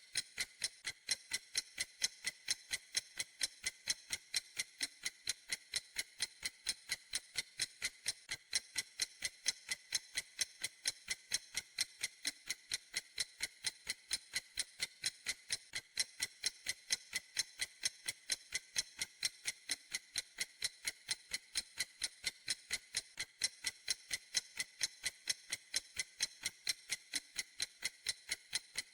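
Clock ticking steadily: sharp, high ticks in an even rhythm, a few each second, never changing.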